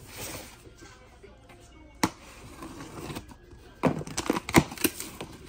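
Box cutter slicing packing tape on a cardboard box, with one sharp snap about two seconds in. Near the end come quick crackles and knocks as the tape is torn and the cardboard handled.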